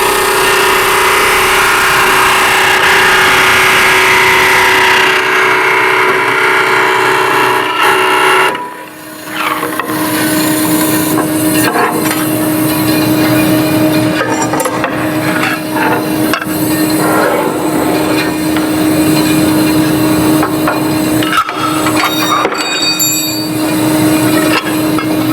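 DoAll Astro V900 vertical bandsaw running and cutting a workpiece: a steady machine hum under loud, noisy cutting sound. The cutting noise drops away briefly about nine seconds in, then starts again.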